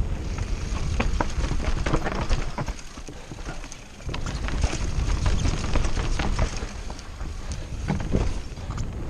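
Mountain bike rattling over a rough, rocky trail, with the tyres crunching and a rapid, uneven run of clicks and knocks from the bike, over a steady rumble of wind on the microphone. The noise eases briefly about three seconds in, then picks up again.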